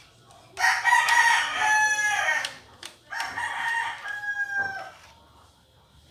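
A rooster crowing twice, each crow about two seconds long and ending on a held, slightly falling note.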